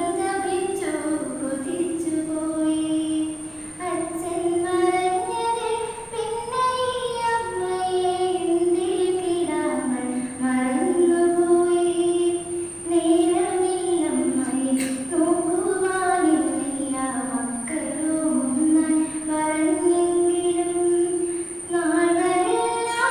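A young woman singing solo and unaccompanied, holding long notes in a flowing melody.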